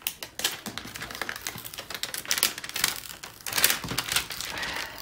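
Thick clear plastic cover film being peeled back off the very tacky glue of a diamond painting canvas: a dense run of irregular crackles and ticks.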